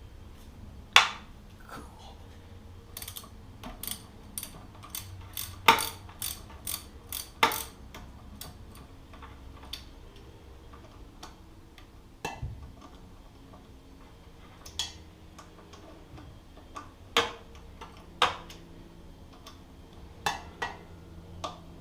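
Socket ratchet clicking in short, irregular runs as the front fork's 6 mm pinch bolts are loosened. A few louder sharp metal knocks come in between.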